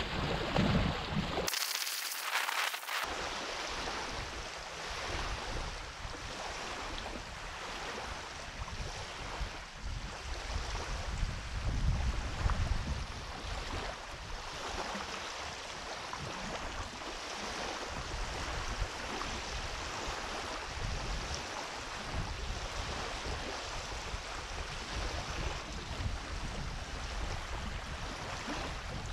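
Small waves lapping on a sandy shore in calm, shallow sea water, with wind buffeting the microphone as an uneven low rumble.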